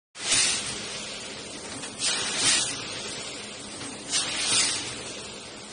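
Rotary premade-pouch filling and packing machine running, with a loud hiss of compressed air venting from its pneumatic cylinders three times, about every two seconds, over steady mechanical running noise.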